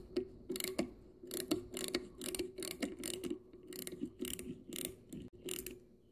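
Thread tap being turned back out of freshly tapped threads in hardwood with a hand tap driver: a run of even, sharp clicks, about three a second, that stops shortly before the end.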